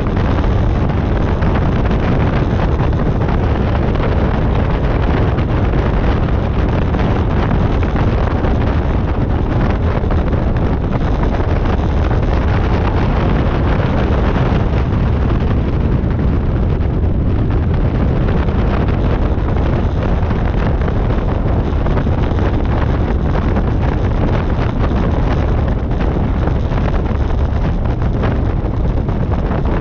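Loud, steady wind buffeting on the microphone from the propeller blast of a light taildragger on a grass strip, its engine running at low power.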